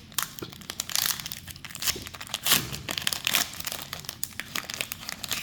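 Foil Pokémon TCG 151 booster pack wrapper crinkling as it is torn open, a dense run of sharp crackles, loudest about halfway through.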